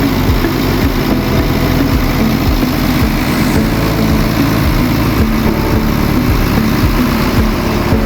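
Scania truck's diesel engine idling steadily, running normally on a newly replaced fuel feed pump.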